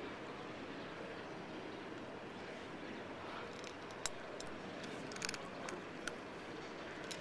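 Cat eating dry kibble from a metal bowl: a few sharp crunches and clicks, mostly in the second half, over a steady background hiss.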